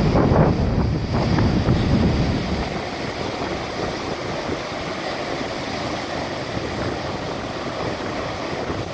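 Gusting wind buffeting the microphone over the steady rush of heavy lake surf breaking against a stone breakwater. The low wind rumble eases about two and a half seconds in, leaving the even rush of the waves.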